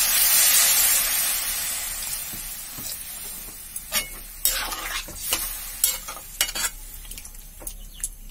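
Water poured into a hot pan of frying papaya and potato sets off a loud sizzle that dies away over the first few seconds. Then a metal spatula scrapes and stirs through the pieces in a run of short strokes.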